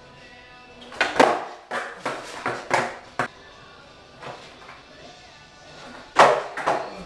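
Skateboard on a concrete floor: a run of sharp clacks and slaps as the board is popped and lands during the first few seconds, then one loud slap of the board hitting the concrete about six seconds in.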